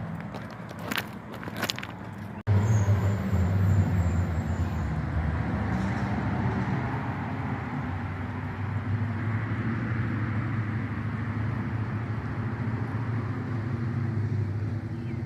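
A few light clicks, then, after an abrupt cut about two and a half seconds in, the steady low rumble and hiss of a car driving on the road.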